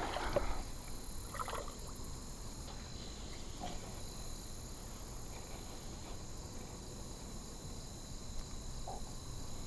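Steady high-pitched chirring of insects, crickets or similar, over faint outdoor background noise.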